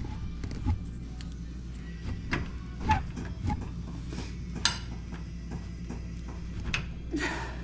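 Scattered light clicks and knocks of metal parts as a side-by-side's rear brake caliper is handled and worked back over freshly fitted brake pads, over a steady low hum.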